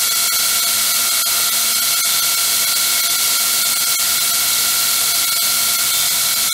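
Heretic 2" x 72" belt grinder running free in reverse, with its variable-speed (VFD) motor driving the abrasive belt. It makes a steady whine over a loud hiss. The belt is tracking steadily.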